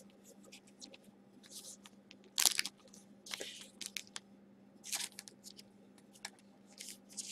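Foil trading-card pack wrappers crinkling and tearing as packs are opened and cards handled, in several short rustling bursts, the loudest about two and a half seconds in.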